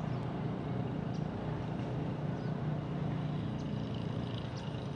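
Steady low engine hum running evenly throughout.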